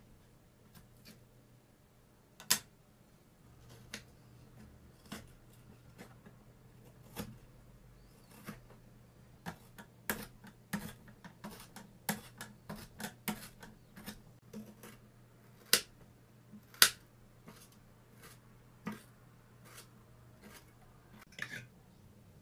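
Small knife clicking and tapping against a tiny wooden cutting board while an onion is peeled and chopped: scattered sharp ticks that come in a quicker run about halfway through, with a few louder knocks.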